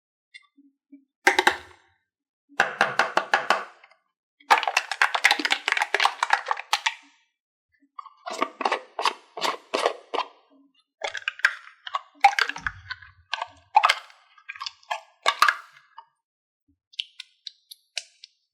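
Slime being squished and stretched by hand, giving off rapid crackling pops and clicks in bursts of a few seconds with short pauses between.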